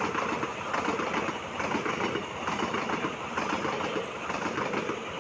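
Indian Railways express train passing at speed without stopping, its coaches rushing by with a steady rattle and clatter of wheels on the rails.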